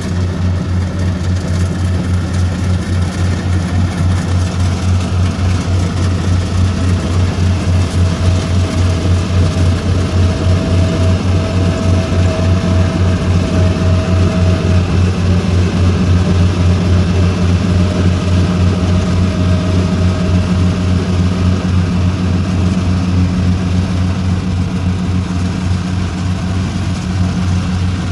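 Engine of a small tracked rice combine harvester running steadily while it cuts and threshes ripe rice: a low drone with a fast, even pulse. A faint higher whine comes and goes over it in the middle.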